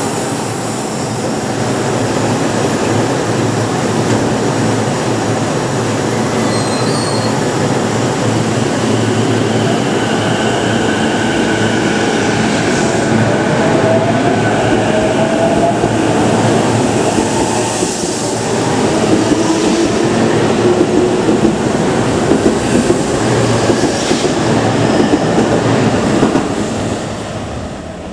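JR East E233-2000 series electric commuter train pulling out and accelerating along the platform. The rising whine of its traction motors is heard over the running noise of wheels on rail. Wheel clacks over rail joints come through in the second half, and the sound falls away near the end as the last car leaves.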